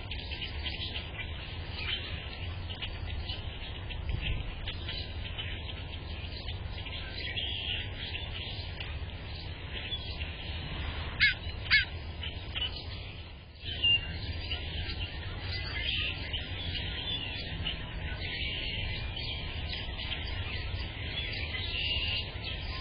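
Small birds chirping and calling steadily over a low background rumble, with two sharp taps about half a second apart near the middle.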